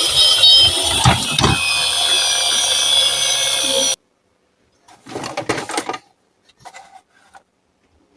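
Electronic two-tone ambulance siren, a high and a low note alternating, from a toy ambulance, with a couple of low knocks; it cuts off suddenly about four seconds in. About a second of rattling follows, then a few light clicks.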